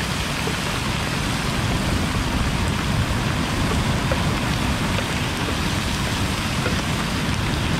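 Bacon and sausages frying hard in a pan of hot oil, sizzling loudly as rainwater falls into the oil, with a few small pops, in steady rain.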